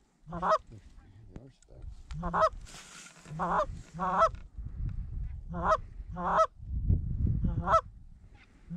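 Goose honking: about eight short, loud honks at uneven spacing, each breaking from a low note up to a higher one, over a low rumble of wind on the microphone.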